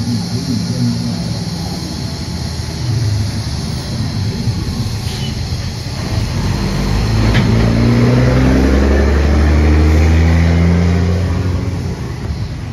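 A motor vehicle's engine running and accelerating past, rising in pitch and loudest from about 7 to 11 seconds in, then fading. Under it runs a steady hiss from the TIG welding arc.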